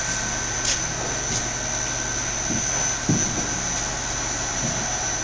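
Clausing Metosa variable-speed engine lathe running under power, a steady machine hum with a constant high whine. A few light clicks early on and a low knock about three seconds in, from the controls or gearing being worked.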